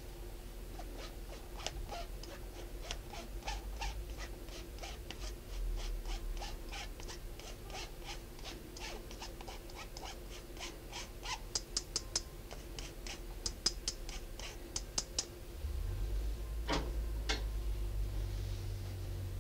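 Flour being sifted through a fine-mesh metal sieve: the sieve is tapped in a steady rhythm of about three light ticks a second, sharper in the second half, then two stronger knocks near the end.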